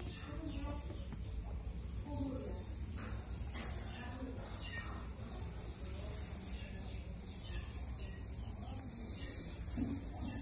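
An insect trilling steadily at a high pitch, breaking off briefly about three seconds in and then carrying on.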